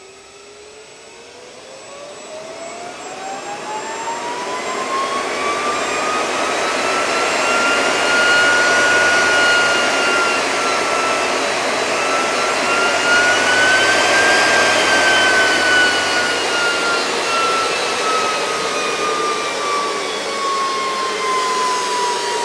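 NetGain Warp 9 series-wound DC motor free-spinning under a 120 V, 500 A Curtis-clone controller at about 112 V: a whine that rises in pitch as it spins up over about eight seconds, climbs again a little past the middle, then slowly falls as the motor slows, over a steady rush of air.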